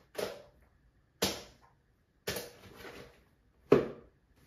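Lip gloss tubes and other small items being handled and dropped into a bag: four sharp clacks about a second apart, the last the loudest.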